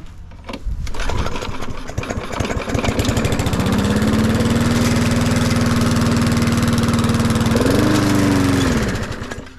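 Lawn mower engine breathing through a straight-through aftermarket muffler: it catches about a second in and runs loud and steady at idle. Near the end the pitch rises briefly, then the engine winds down and stops.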